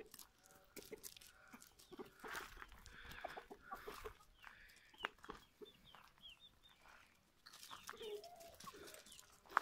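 Chickens clucking faintly, a scatter of short calls.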